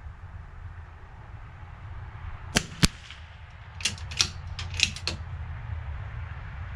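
Gunshots at a rifle range: two loud, sharp shots about a quarter of a second apart, then a quick cluster of four or five more cracks a second later, over a steady low rumble.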